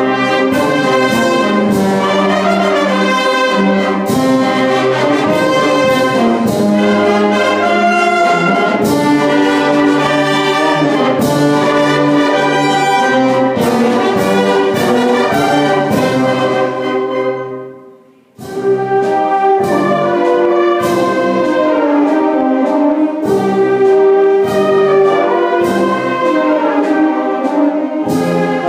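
Full wind band of woodwinds, brass and percussion playing a slow, sustained passage. About two-thirds of the way through, the band stops together and the sound dies away for a moment before the band comes back in.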